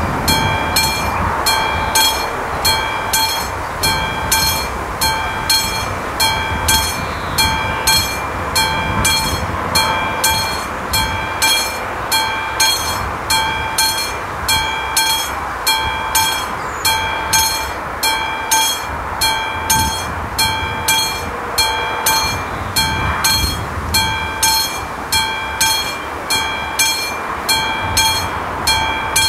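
Classic mechanical warning bell of an AŽD 71 level-crossing signal ringing steadily at about two strikes a second, each strike ringing on. It is the crossing's warning that a train is approaching.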